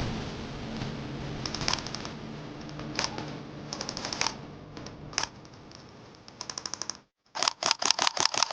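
Airsoft electric rifles firing short full-auto bursts: quick trains of rapid clicks. After a brief dropout about seven seconds in, louder bursts follow in close succession.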